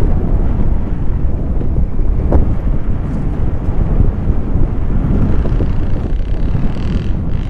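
Wind buffeting the camera microphone: a loud, steady, low rumble of rushing air during a paraglider flight.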